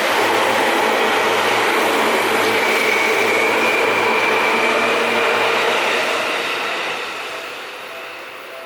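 Seibu Ikebukuro Line electric train passing close by at a level crossing, a loud steady rush of wheels on rail and running gear. A thin high whine rises in the middle, and the noise fades away over the last couple of seconds as the train draws off.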